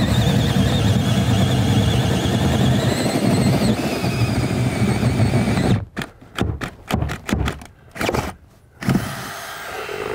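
Cordless drill boring through old wooden wall boards, its motor running steadily under load for about six seconds, then pulsed in a string of short bursts.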